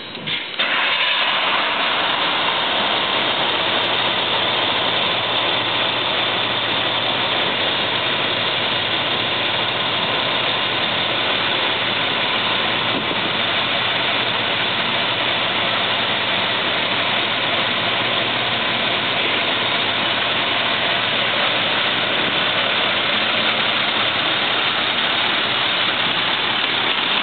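Diesel engine of a 1999 International 4800 brush fire truck starting about a second in, then running steadily.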